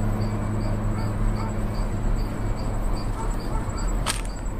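Outdoor dusk ambience: insects keep up a faint high chirping, about three chirps a second, over a steady low rumble. A brief sharp noise cuts in about four seconds in.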